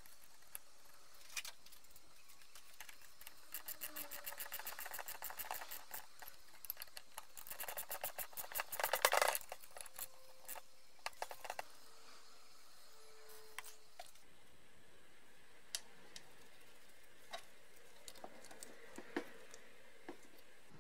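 Socket ratchet clicking quickly while a bolt is run into a brake caliper, with a combination spanner holding the other end. The clicking comes in two runs, the second faster and louder, followed by a few scattered light metallic taps of tools and parts.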